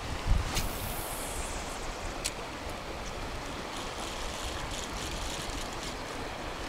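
Steady rush of river water with wind rumbling on the microphone, and a sharp knock a fraction of a second in and a lighter click about two seconds in.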